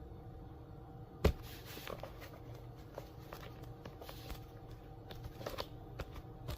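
Hands working sheets of wood veneer and veneer tape on a bench: one sharp knock about a second in, then scattered light taps and rustles, over a steady low hum.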